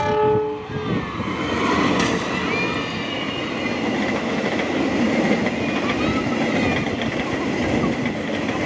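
A train passing close by: the loud, steady rolling noise of its wheels on the rails.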